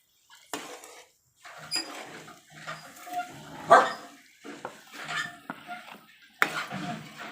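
A dog barking several times, the loudest bark about halfway through, with a spoon clattering and scraping in a pot as rice rava is stirred into boiling water.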